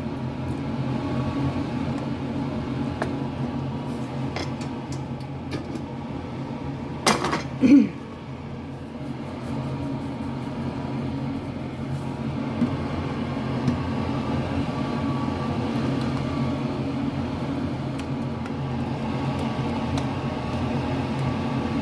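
Silicone spatula stirring a thick cream sauce in a nonstick frying pan, over a steady appliance hum. A brief loud clatter about seven seconds in.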